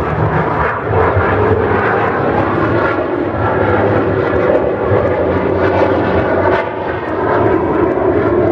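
Military jet aircraft in flight, its engines making a loud, steady rushing noise.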